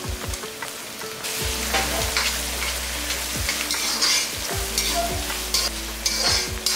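Sliced onions frying in hot oil and ghee in a kadai, sizzling as they are stirred, with the sizzle getting louder about a second in.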